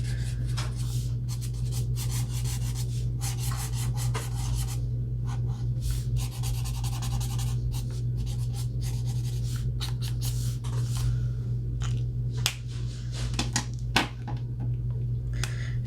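Ohuhu alcohol marker (BG5) rubbed on paper in many short back-and-forth strokes, a dry scratchy rubbing, over a steady low hum.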